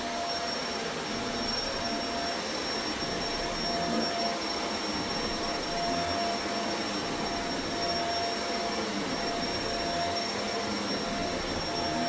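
Vacuum cleaner running steadily, with a thin high whine over its motor noise.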